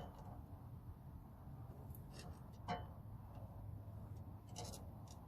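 A few short, sharp clicks and clinks of hand tools at work, over a low steady hum.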